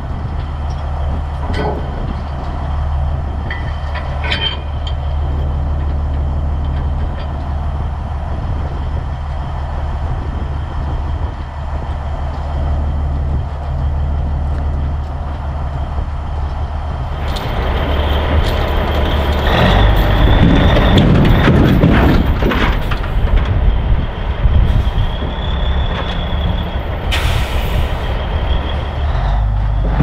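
Diesel engine of a 1984 Peterbilt 362 cabover idling steadily, then working harder from about halfway as the tractor backs toward the lowboy's detached gooseneck. A high whine comes and goes, and there is a short hiss of air near the end.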